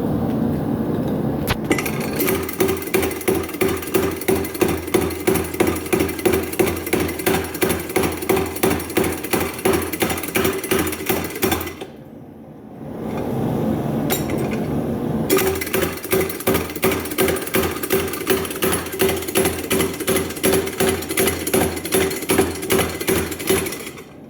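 Homemade leaf-spring power hammer, driven through a crank and pulleys by a foot-pedal clutch motor, pounding hot steel in a fast, steady rhythm. The blows stop about halfway through and start again a second or two later.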